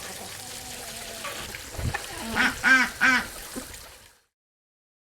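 Two short nasal calls from a farm animal, about two and a half and three seconds in, preceded by a dull low thump; the audio then cuts off abruptly to silence.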